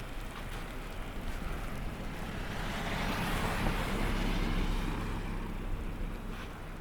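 A vehicle drives past on a snow-covered street, its tyre hiss swelling to a peak after a few seconds and then fading, over steady wind.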